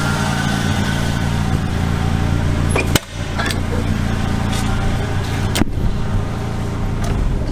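1991 Ford Ranger's 2.3-litre four-cylinder engine idling steadily, with two sharp clicks about three and five and a half seconds in.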